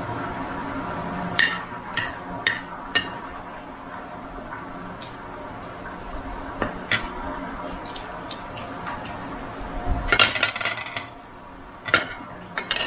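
Cutlery clinking against a plate in a series of separate sharp clinks, with a quick flurry of them about ten seconds in, over a faint steady hum.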